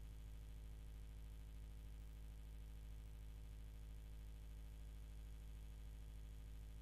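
Near silence apart from a steady low electrical hum that does not change.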